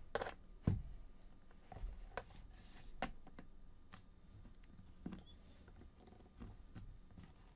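Scattered light clicks and knocks of a screwdriver with a special security bit being worked on the small screws of a plastic egg boiler's casing.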